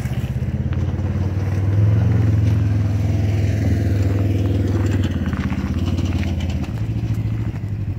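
An engine running at a steady idle, a low even throb that swells slightly about two seconds in.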